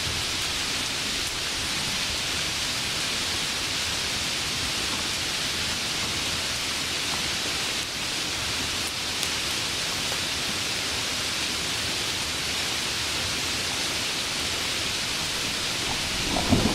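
Steady hiss of heavy rain. Just before the end a low, rough rumble of thunder begins.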